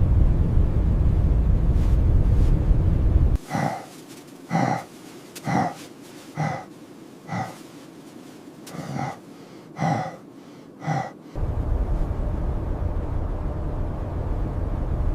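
Strong blizzard wind rumble that cuts off abruptly about three seconds in, leaving a person gasping for breath: about eight short, sharp gasps roughly a second apart. The wind rumble returns abruptly about eleven seconds in.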